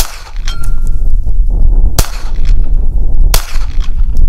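Three .22 LR pistol shots from a Volquartsen Scorpion, the first at the very start, then about two seconds and a second and a half apart. A thin ringing tone follows the first shot for about a second, and wind rumbles on the microphone throughout.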